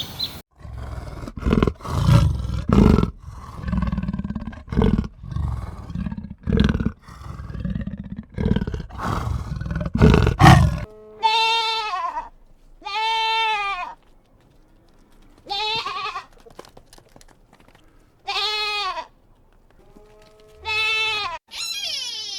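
Farm animal calls: for about the first eleven seconds a run of loud, rough, low calls, then a series of separate high-pitched, arching cries about a second long, repeated every couple of seconds.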